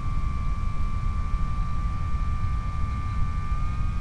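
Skyhunter RC plane's electric pusher motor and propeller whining steadily over heavy wind rush on the onboard microphone. The whine steps up slightly in pitch near the end as the throttle is opened a little.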